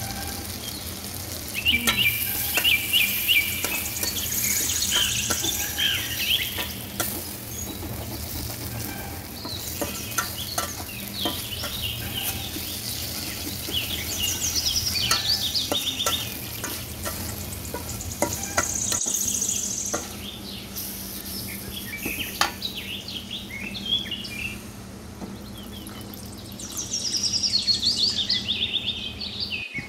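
Prawns frying in masala in a steel karahi, sizzling, stirred and scraped with a metal spatula; water is poured in near the end. Birds chirp in the background throughout.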